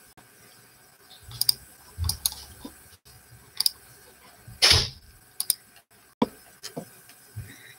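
Irregular sharp clicks and light knocks, a dozen or so spread unevenly, with one longer, louder scuff a little past halfway.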